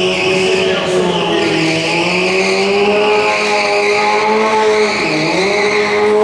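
Sportbike engine held at high revs through stunt riding, its pitch wavering up and down and dipping briefly about five seconds in.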